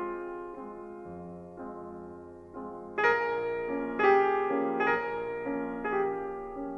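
Slow, gentle piano music. Notes ring and fade through the first few seconds, a louder chord comes in about three seconds in, and further notes follow roughly every half second to a second.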